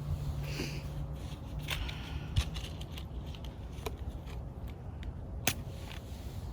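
Scattered sharp clicks and crackles from lighting a small twig stove with kindling, fuel tabs and matches, with a short hiss about half a second in. A low hum stops within the first two seconds.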